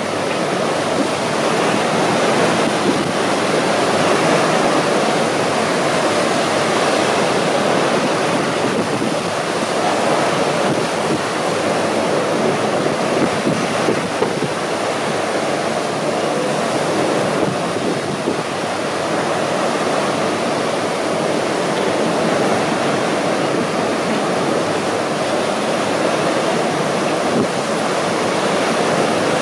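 Strong wind blowing across a ship's open deck over a rough, whitecapped sea: a loud, steady rush of noise that hardly varies.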